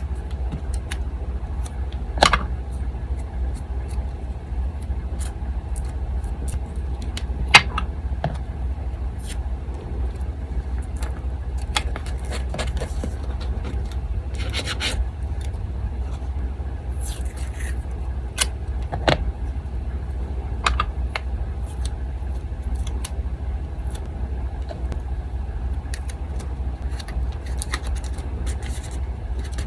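Desk crafting sounds: paper being handled and rubbed, with a few sharp taps and clicks, over the steady low hum of an electric fan.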